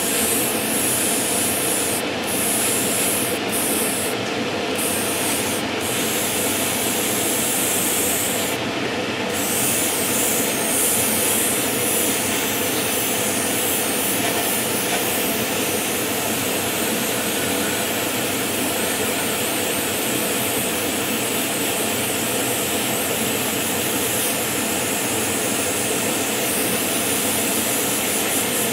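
Spray booth extractor fan running steadily, with the high hiss of an airbrush spraying over it. The hiss drops out briefly several times in the first ten seconds, then runs on unbroken.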